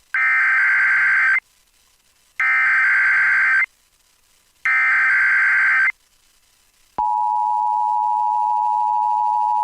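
Emergency Alert System header on NOAA Weather Radio: three short, identical SAME digital data bursts about a second apart. About seven seconds in, the steady Weather Radio warning alarm tone begins and holds.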